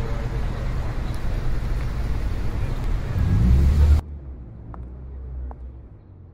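City traffic noise: a steady rumble of road traffic that swells briefly and then cuts off abruptly about four seconds in. A much quieter room follows, with a couple of faint clicks as a record is handled at a gramophone.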